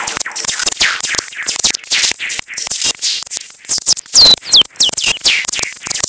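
Electronic synth jam from a Teenage Engineering OP-1 played through a Waldorf 2-Pole filter and an Artec analog delay: a fast stream of short, clicky percussive hits. From about four seconds in, quick falling-pitch zaps repeat one after another.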